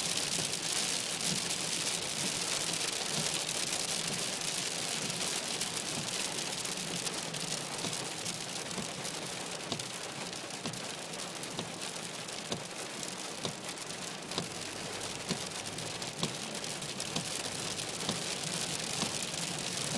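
Rain and hail hitting a car's windscreen and roof, heard from inside the cabin: a steady, dense patter of many small hits.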